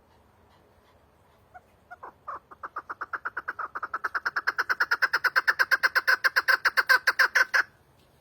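Chukar partridge calling: a run of short repeated notes that begins sparsely about one and a half seconds in, speeds up to about seven a second and grows louder, then stops abruptly.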